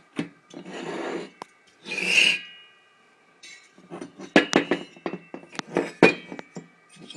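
Chainsaw parts being handled on a hard surface: two short scraping slides, then, after a brief pause, a run of clicks, knocks and light metallic clinks as pieces are picked up and set down.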